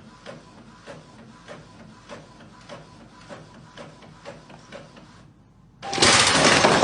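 Steady mechanical clicking, a little under two clicks a second, over a faint steady tone; it stops about five seconds in, and a loud, noisy sound starts near the end.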